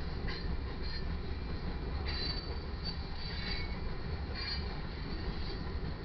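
Freight train cars rolling past: a steady low rumble with brief, irregular high-pitched squeals of steel wheels on the rail.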